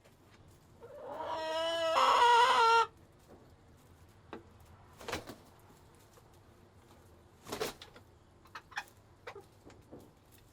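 Chickens in a coop: a rooster crows once, a long loud call about a second in that cuts off sharply, then hens cluck in short, scattered calls.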